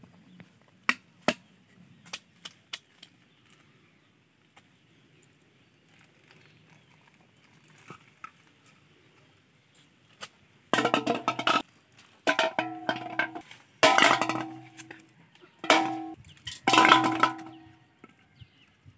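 Plastic bottles dropped one after another into a large aluminium basin, which rings with a metallic clang at each hit. There are five loud knocks in the second half, after a few small clicks of handling.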